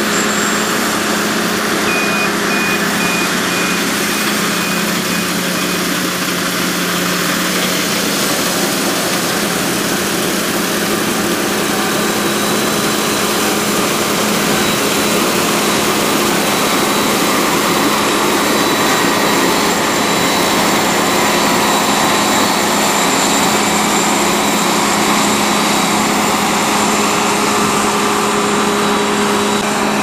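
New Holland combine harvester running steadily while harvesting, its engine and threshing machinery making a constant drone with a steady low hum.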